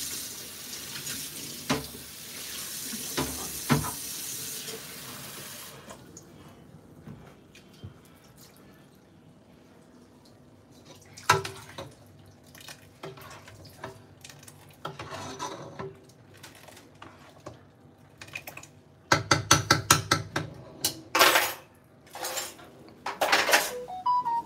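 Kitchen tap running into a stainless steel sink for the first six seconds, followed by a metal spoon clinking and scraping against a soup pot and pans. A quick run of about ten sharp knocks comes about three-quarters of the way through.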